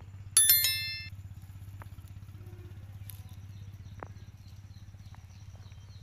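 A motor runs steadily in the background with a low, pulsing hum, and a single bright metallic ding rings out about half a second in, fading within a second.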